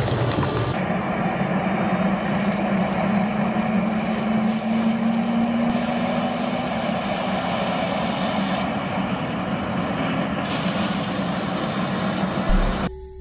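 Jet engine running: a steady, loud rush with a low hum that rises slightly a few seconds in and then eases back, cutting off abruptly near the end.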